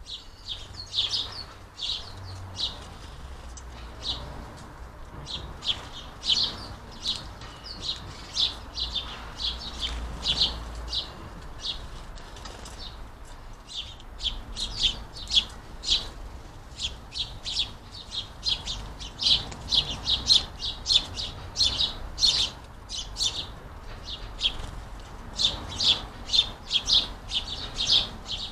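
House sparrows chirping over and over, a flock's short, sharp chirps coming thick and fast, denser in the second half.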